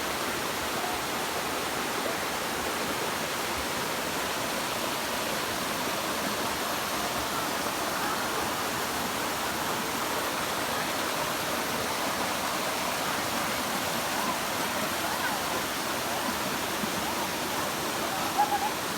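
Water of a low waterfall pouring and splashing: a steady, even rush that holds level throughout.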